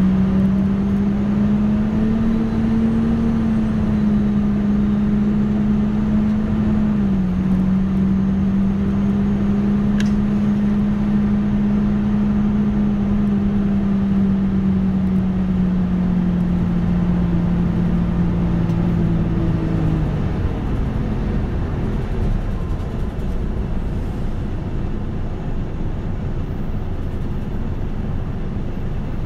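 Ride sound inside a Nissan Diesel KL-UA272KAM city bus on the move. A steady drone holds, steps down slightly in pitch about seven seconds in, then sags slowly and stops about twenty seconds in, leaving the bus's road and running noise.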